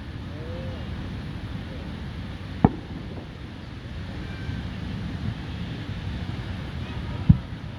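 Fireworks shells bursting: two sharp booms, about two and a half seconds in and again near the end, over steady low background noise.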